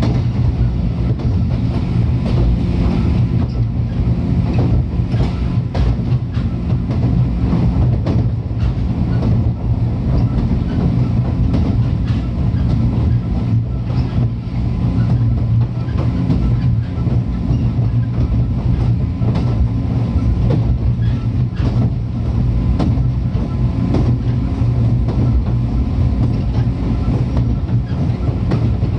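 JR 103-series electric train running at a steady speed, heard from inside the car: a constant low hum under a rapid scatter of wheel clicks over the rail joints.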